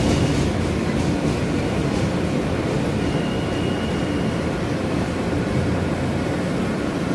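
Steady rumble of a New York City subway train, a J train car, running on elevated track, heard from inside the car. A faint high squeal comes in about three seconds in and lasts about a second.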